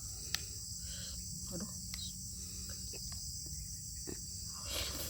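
Eating soup: a few soft spoon clicks and mouth sounds, with a louder slurp near the end. Underneath is a steady high-pitched drone of insects.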